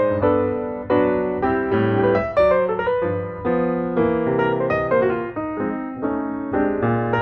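Background piano music: a steady flow of struck notes and chords, each note fading after it is played.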